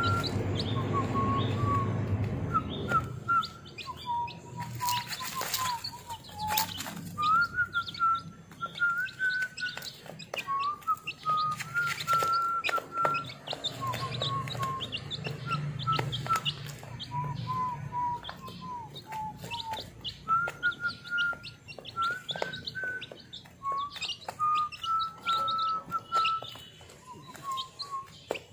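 A brood of week-old chicks peeping, with many quick ticks of beaks pecking at crumble feed. Longer whistled tones step up and down in pitch the whole way through.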